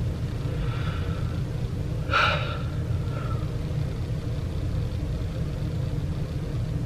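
Steady low background rumble, with one short, sharp sniffle about two seconds in from a person who has been crying.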